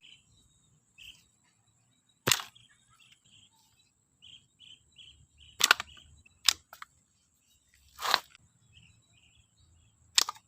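Toy guns being handled and snapped, giving five sharp clicks spaced one to two seconds apart, the one about eight seconds in slightly longer. Small birds chirp quietly in the background.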